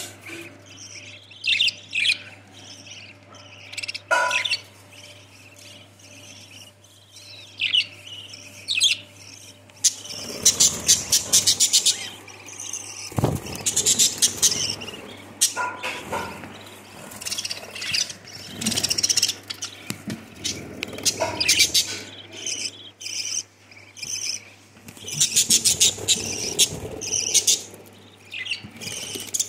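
Budgerigars chirping and chattering in bursts of quick, high chirps and rapid trills, sparse at first and much busier from about a third of the way in.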